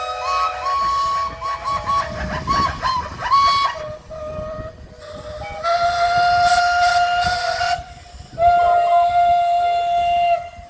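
Many steam engines' whistles blowing together in a mass whistle blow, several pitches overlapping in a chord. Short toots in the first few seconds give way to long held blasts, with brief drops about four and eight seconds in.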